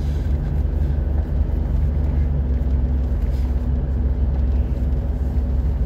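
Steady low rumble of a car driving along a road, its engine and tyre noise heard from inside the cabin.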